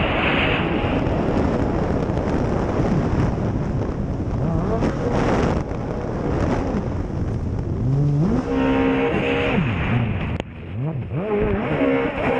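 Racing jet ski engine heard from onboard, its revs repeatedly climbing, holding and dropping under a dense rush of wind and water spray. The engine falls off briefly about ten seconds in before picking up again.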